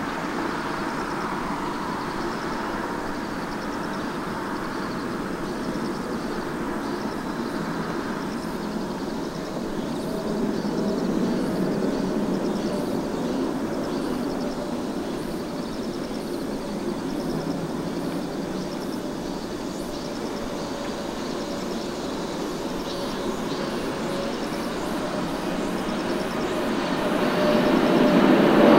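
Jet airliner engines running: a steady rushing noise with a held whine-like tone. It swells about ten seconds in and grows louder again near the end.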